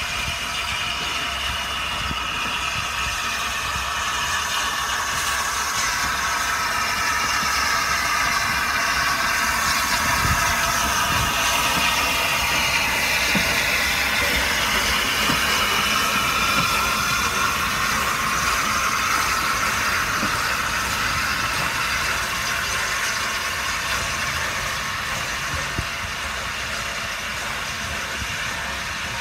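Peppercorn A1 Pacific steam locomotive 60163 Tornado moving slowly as a light engine, a steady hiss and rumble with shifting tones. It grows louder as the engine comes alongside and eases off as it moves away near the end.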